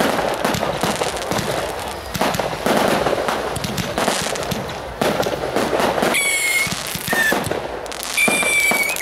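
Ground fireworks crackling and popping in rapid succession, with two steady high whistles about six and eight seconds in.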